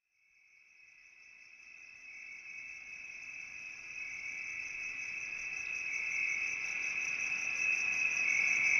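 Insects chirring: one continuous high trill that fades in from silence about a second in and grows steadily louder.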